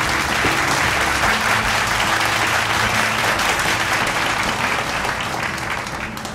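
A crowd applauding, with background music under it; the clapping fades out near the end.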